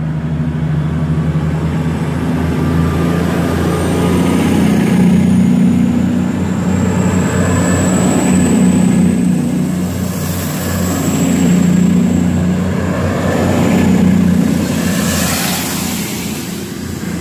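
CrossCountry Class 221 Super Voyager diesel-electric train pulling out along the platform, its underfloor diesel engines running under power and swelling as each car passes close by. A thin high whine rises in pitch as the train gathers speed.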